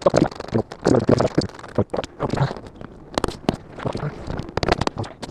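Irregular clicks, knocks and rustling of hands handling car parts and tools during reassembly work.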